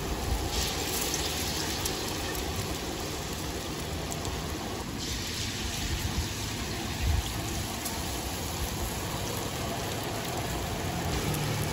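Food sizzling on a hot pan as it cooks, a steady hiss, with a single knock a little past halfway.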